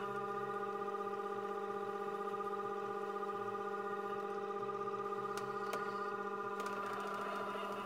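Homemade cymbal lathe running, spinning a crash cymbal while a cloth polishes it: a steady hum with several held tones stacked above it, and a few light ticks a little past the middle.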